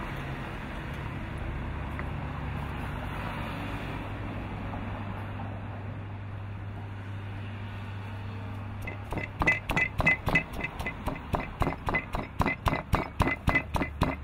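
Granite mortar and pestle pounding fresh red chillies, starting about nine seconds in: a regular run of sharp knocks, about three to four a second. Before that, a steady low hum under background noise.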